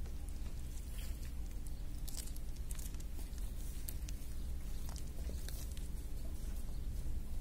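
A cat chewing and biting at a scrap of food, small irregular clicks and crackles over a steady low rumble.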